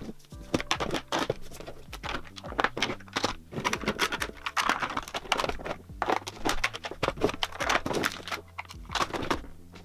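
Makeup items and clear acrylic drawer organizers clicking and clattering as they are handled, lifted out and set down in a vanity drawer: a quick, irregular run of small plastic knocks with some rustling.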